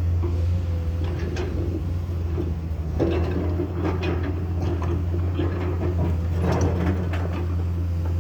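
Komatsu excavator's diesel engine running steadily under load, with intermittent clanks and scrapes about five times, from the bucket working material.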